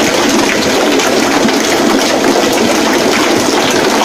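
Electric rice-flour batter mixer running, its paddle churning a tub of liquid batter. The sound is a steady, loud sloshing and swishing with no let-up.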